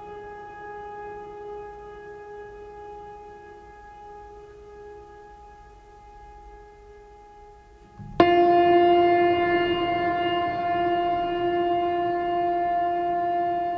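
Background music of long held, droning notes: one note slowly fades, then a louder, slightly lower note with many overtones comes in abruptly about eight seconds in and holds.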